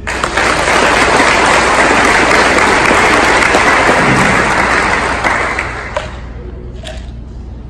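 Audience applauding in a large room. It starts right away, holds for about five seconds, then dies away.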